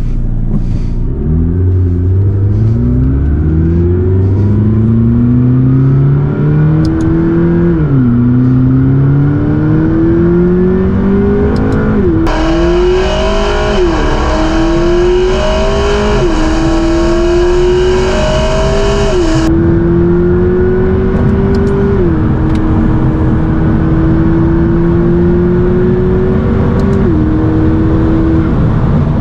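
McLaren MP4-12C's twin-turbo V8 pulling under acceleration. The engine note climbs steadily in pitch and drops sharply at each gear change, seven times, then rises again.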